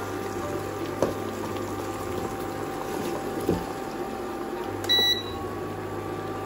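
Beaten egg and cream mixture sizzling and bubbling in melted butter in a nonstick pan, a steady frying sound over a constant electrical hum from the induction cooktop. A couple of light clicks and a short high beep about five seconds in.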